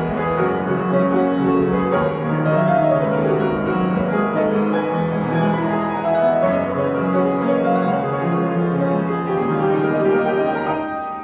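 Piano music: a dense passage of chords and runs, ending near the end on a final chord that is held and fades away.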